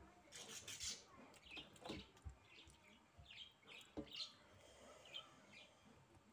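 Faint eating sounds: fingers mixing rice on a metal plate, with small mouth clicks from chewing, and a few faint bird chirps in the background.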